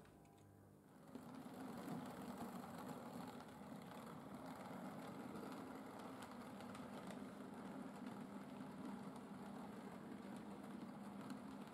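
Model railway train running along the track: a small electric locomotive motor hums steadily with the wheels rolling on the rails, starting about a second in.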